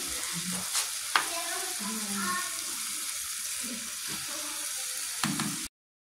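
Chopped green beans with tomato and onion sizzling in hot oil in a frying pan, stirred with a spoon, with a couple of sharp clicks of the spoon on the pan about a second in. The sound cuts off suddenly near the end.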